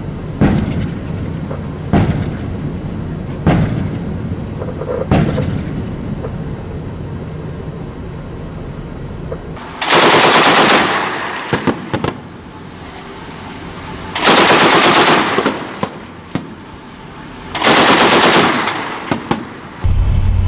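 A naval gunboat's gun firing single shots about every second and a half over steady sea and wind noise, followed by three bursts of heavy machine-gun fire from a deck-mounted gun. Each burst lasts about a second.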